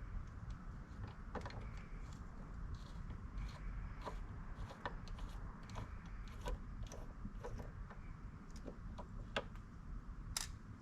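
Small scattered clicks and taps of a jeweler's screwdriver and fingers working out the tiny screws that hold an old guitar tuning machine to the back of the headstock, with a sharper click near the end.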